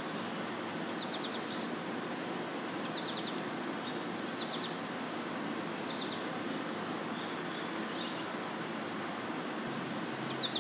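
Steady outdoor background hiss with faint, short high chirps and quick ticking trills recurring about once a second.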